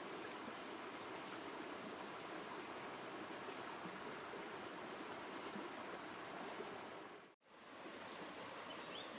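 Steady rushing of a shallow stream running over rocks. It cuts out for a moment near the end, then resumes.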